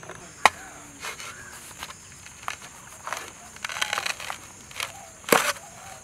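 A coconut's husk being rammed onto a fixed metal husking blade and torn away: a string of sharp cracks and thuds, irregular, one or two a second, the loudest about five seconds in.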